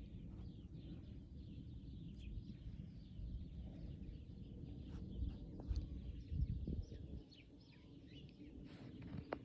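Outdoor ambience: a low rumble with a few heavier thumps about five to seven seconds in, and faint bird chirps scattered throughout.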